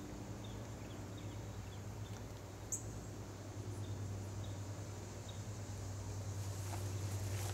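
Faint outdoor ambience: a steady low hum with scattered faint high chirps, and a single sharp click about two and a half seconds in.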